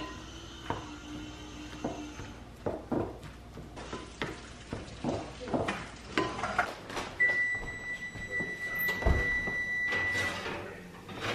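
A wooden spoon scrapes and knocks against a glass mixing bowl as food is stirred. A little past halfway a steady electronic beep sounds for about three seconds. Near its end comes a low thump as the oven door is opened.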